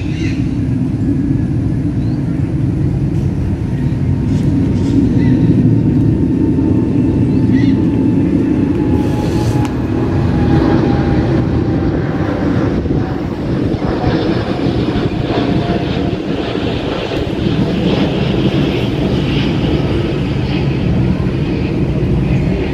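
Steady low engine rumble, with a faint whine sliding slowly down in pitch over about ten seconds.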